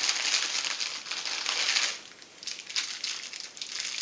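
Toy packaging being rummaged through and crinkled: a dense crinkling for about two seconds, then shorter rustles.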